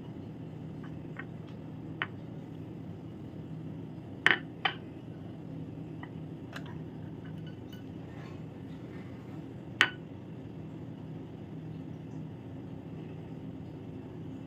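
A spatula clinking against a glass mixing bowl while scooping thick melted chocolate mixture: a few sharp clinks, two close together about four seconds in and one near ten seconds, over a steady low hum.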